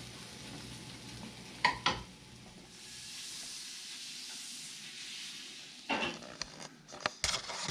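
Omelet sizzling as it fries in a pan on a gas burner, with two sharp knocks, the wooden spatula against the pan, about two seconds in. A few short clicks and knocks near the end.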